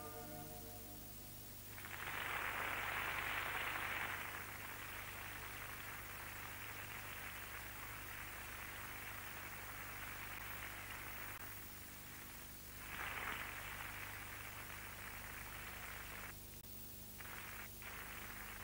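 Steady noisy hiss with a low hum beneath it, swelling louder twice, around two seconds in and again about thirteen seconds in, and briefly cutting in and out near the end.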